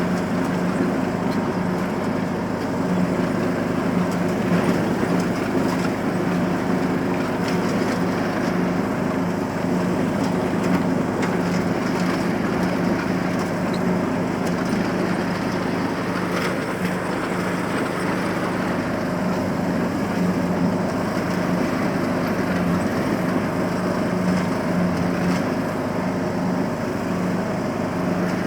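John Deere riding lawnmower engine running steadily, a constant low hum with no change in speed.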